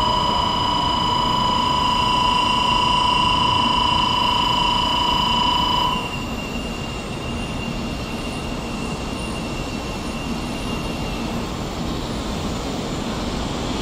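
100 series Shinkansen train running with a steady rumble, under a long, steady high tone that cuts off sharply about six seconds in. A fainter high whine lingers until about eleven seconds.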